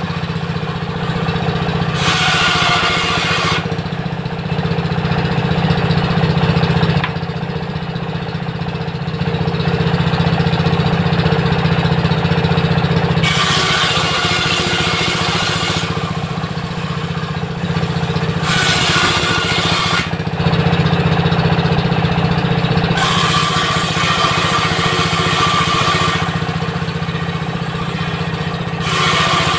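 A 16 HP diesel engine runs steadily, driving a circular table-saw blade. Five times for a few seconds each the blade rips through timber, adding a harsh, high cutting rasp over the engine drone.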